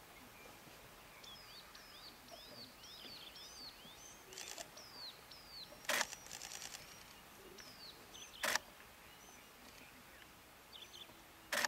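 A bird sings a quick run of about eight down-slurred whistles through the first half. Three sharp clicks, about two and a half seconds apart, are the loudest sounds, and the first is followed by a short stretch of rapid faint clicking.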